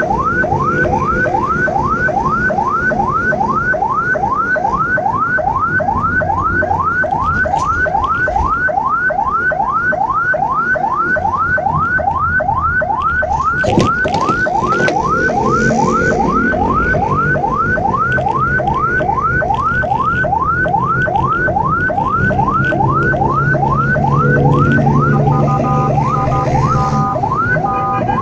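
Ambulance siren on a rapid yelp, quick rising sweeps a little over two a second, over engine and road rumble from inside the moving vehicle. Near the end a second siren with a steady two-note pattern joins.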